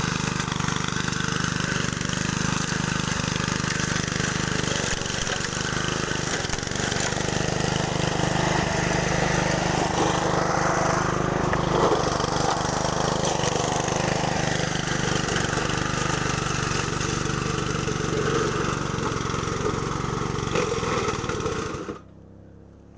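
Honda self-propelled walk-behind lawn mower's petrol engine running steadily, cutting off abruptly near the end.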